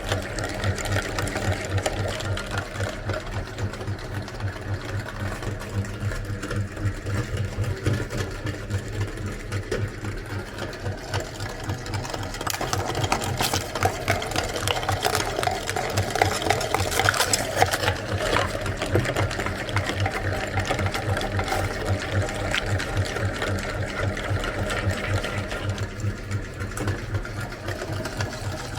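Electric meat grinder running with a steady motor hum and a fast, even pulse. From about twelve seconds in to about nineteen seconds it gets louder and noisier as it grinds.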